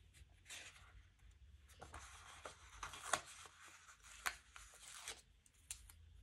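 Faint paper rustling and light clicks as small paper stickers are peeled off a sticker sheet and handled, with a couple of sharper ticks around the middle.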